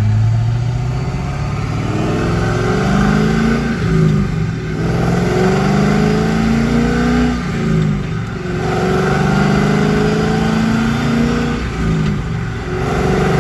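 C5 Corvette V8 accelerating through the gears on the rebuilt T56 six-speed manual. Engine pitch climbs, drops at each upshift, and climbs again, with three shifts about four seconds apart.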